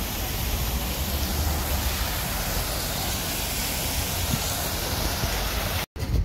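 Public fountain's water splashing: a steady rushing hiss with a low rumble beneath it, cut off suddenly near the end.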